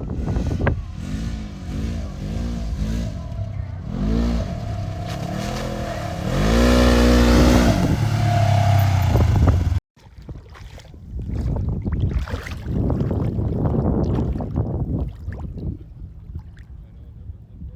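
Side-by-side UTV engine revving in repeated surges, the pitch climbing and dropping each time, with the biggest rev about two-thirds of the way through the first half. After a sudden cut the engine sound turns rougher and noisier, without a clear pitch.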